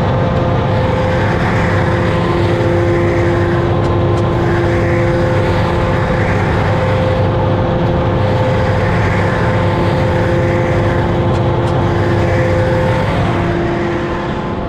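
Claas Jaguar 960 forage harvester running with its chopper drum spinning during the automatic knife-sharpening cycle. A steady machine drone with held tones carries a rougher grinding swell every second or two, as the sharpening stone scrapes across the knives. The stone is not feeding down onto the knives, so the sharpening is not working properly.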